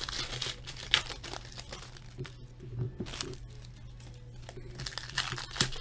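Trading cards and foil pack wrappers being handled: irregular rustling, crinkling and sharp paper clicks as a stack of hockey cards is flipped through.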